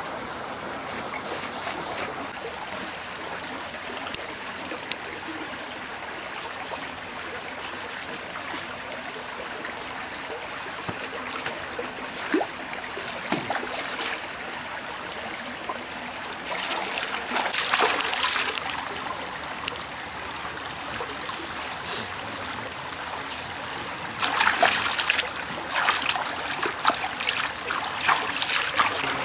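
Forest stream running and trickling steadily. Louder bursts of noise come in just past the middle and again from about five seconds before the end.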